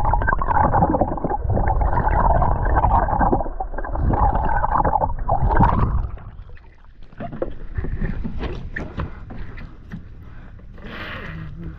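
Boat motor running loudly, then dropping away about six seconds in, leaving quieter scattered knocks and clicks.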